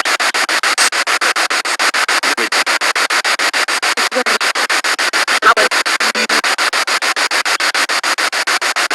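Spirit box radio sweeping through stations: hissing static chopped into rapid, evenly spaced pulses many times a second, with brief fragments of broadcast audio caught in the sweep about the middle.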